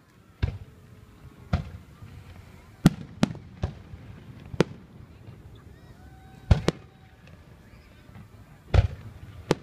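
Aerial firework shells bursting overhead: about ten sharp bangs at irregular intervals, some in quick pairs.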